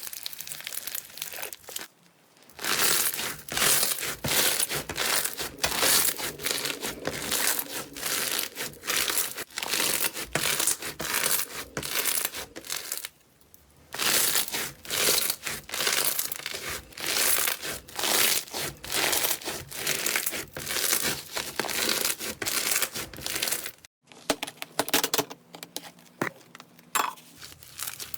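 Slime being squeezed, pressed and pulled by hand close to the microphone, making a dense run of crackles and pops. The crackling pauses briefly about two seconds in and again about thirteen seconds in, and turns sparser and quieter near the end.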